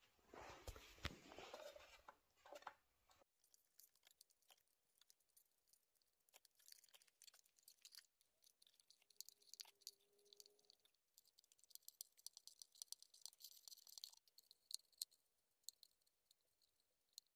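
Faint, irregular crackling of plastic melting under a soldering iron as a crack in a Honda Dio's plastic engine cooling shroud is welded. A louder rustle comes in the first few seconds.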